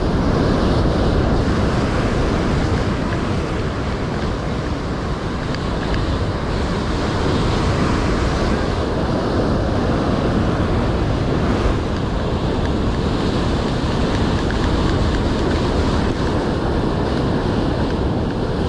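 Steady rushing noise of wind buffeting the microphone over rough surf, heaviest in the low end.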